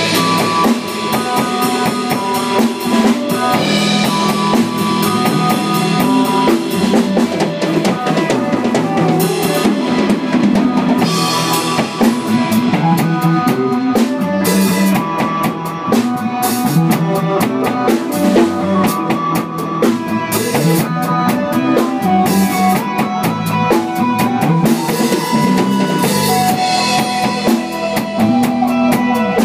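A small live band jamming: a drum kit with bass drum, snare and rimshots playing under pitched instruments such as guitar.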